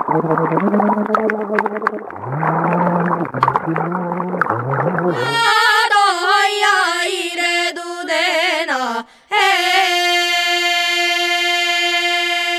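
A montage of sound-art excerpts. First come low, gliding voice-like tones with scattered crackling clicks. About five seconds in, a girl's voice sings a wavering folk-style refrain, "eheheoya eoya deoya". After a short break, a single steady tone rich in overtones holds to the end.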